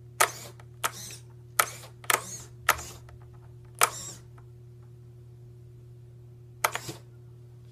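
Suspension servos of a radio-controlled 1957 Chevy Bel Air lowrider model being switched quickly, making about seven short, sharp mechanical bursts as the car's corners are raised and dropped, with a long gap before the last one.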